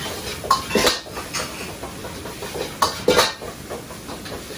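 Metal ladle clanking and scraping against a wok as fried rice is pressed to break up clumps and turned over, with clusters of sharp clanks about half a second in and about three seconds in.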